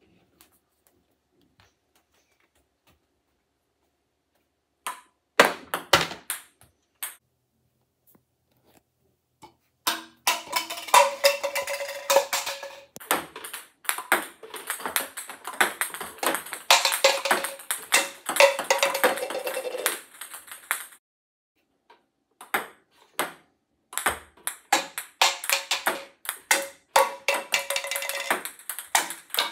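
Table tennis balls clicking and pinging as they bounce on the table and paddle: scattered single clicks about five seconds in, then long runs of rapid, closely spaced pings with a ringing note, and more scattered bounces near the end.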